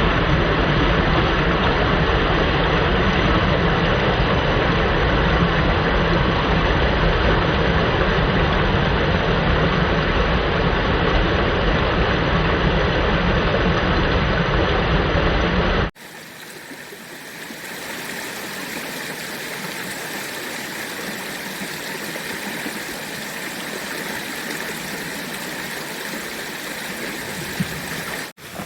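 Rushing water of a creek waterfall, a loud steady hiss. About halfway through it drops suddenly to a quieter, steady rush of water.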